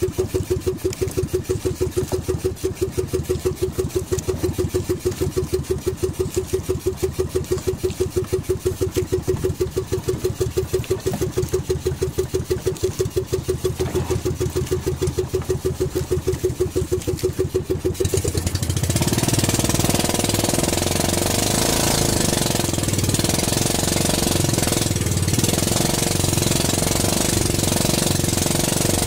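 Small outrigger-boat engine running at low throttle with an even, rapid pulse, then opened up about eighteen seconds in to a louder, steady run with rushing water and wind.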